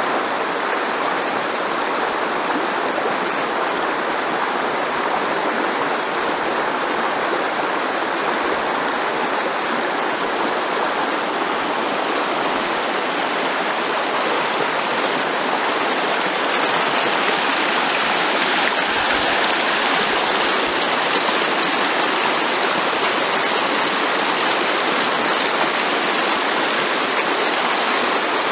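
Shallow river running over a stony bed, a steady rushing of water that grows a little louder about halfway through.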